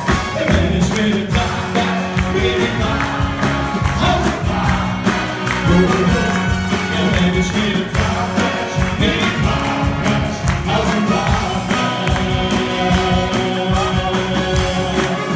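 Two men singing a comic song together into microphones over backing music with a steady beat.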